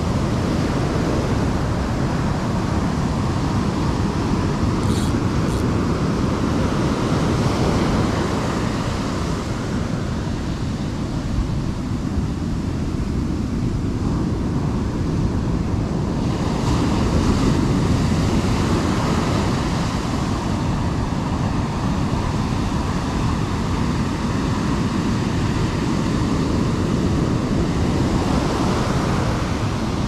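Heavy surf breaking and washing up a sandy beach: a continuous rushing roar that slowly swells and eases as the waves come in.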